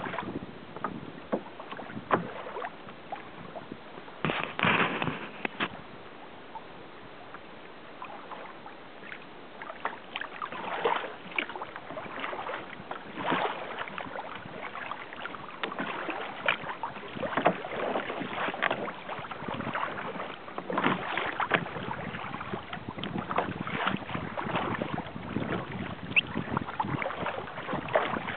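Choppy lake water splashing and slapping irregularly against a sailing kayak's hull as it moves along, over a steady rush of water and wind.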